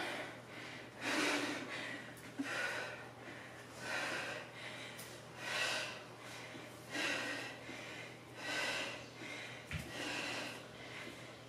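A woman breathing hard with exertion while twisting a kettlebell side to side, one forceful breath about every second and a half.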